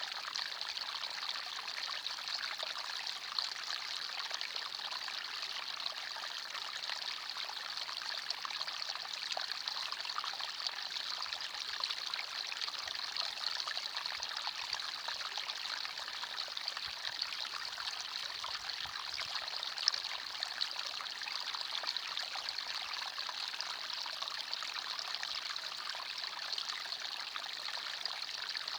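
Small forest stream flowing and trickling steadily over stones, a constant bright rush of water.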